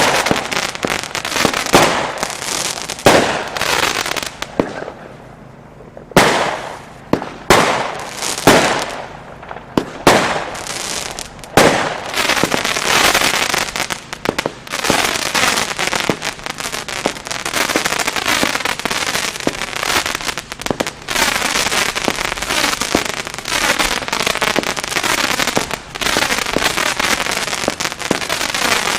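Weco 'London' firework going off: a string of separate loud bangs over the first dozen seconds, then a dense, unbroken crackling to the end.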